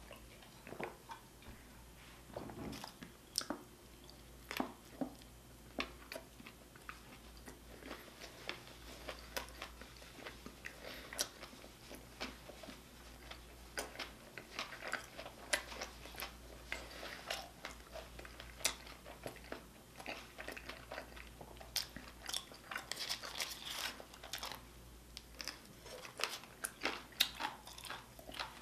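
A person eating: bites and chewing, with many short, irregular wet mouth clicks and smacks.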